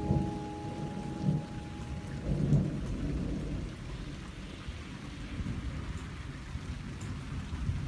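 Thunder rumbling over steady rain. The low rumble swells twice in the first three seconds, then the rain carries on alone with fainter rumbling.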